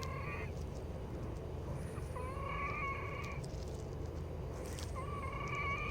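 A person's wheezing breaths: a high, steady whistling tone on each breath, heard three times about every two and a half to three seconds, the last one starting near the end. It is the wheeze of narrowed airways in the lungs.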